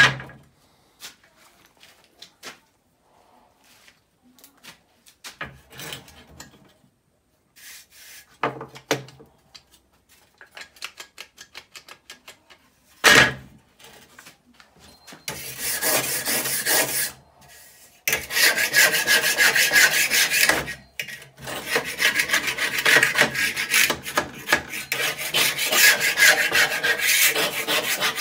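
Scattered taps and clicks as a rusty steel crosscut saw blade is handled on a wooden bench, then, about halfway through, a wire brush scrubbing rust off the blade in rapid, continuous strokes, briefly pausing once before carrying on.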